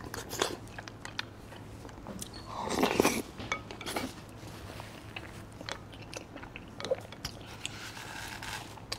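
Close-miked wet chewing and mouth noises of someone eating yogurt-coated century eggs, with a louder stretch of chewing about three seconds in.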